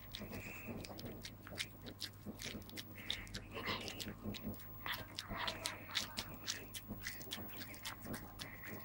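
Red Staffordshire bull terrier chewing a sticky candy, its jaws smacking open and shut in quick, irregular clicks.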